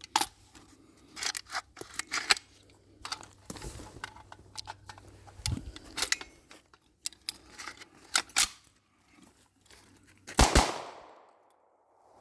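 Auto-Ordnance Thompson M1 semi-automatic .45 ACP carbine firing a string of single shots at uneven spacing, the loudest pair near the end followed by a short echo: the gun running through a magazine after repeated jams.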